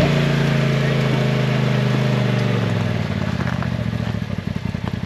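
Side-by-side UTV engine running, its pitch falling slowly over the first few seconds as it slows, then settling into a quick, even, pulsing idle.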